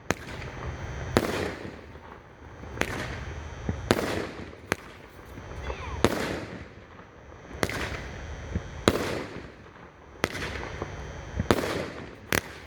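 A 12-shot 200-gram gold willow fireworks cake firing its shots in succession: about ten sharp bangs a second or so apart, each followed by a fading crackling hiss from the bursting shell.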